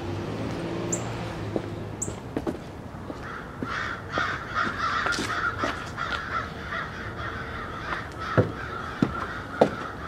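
Crows cawing over and over. Near the end come footsteps on wooden porch steps, a few knocks about half a second apart.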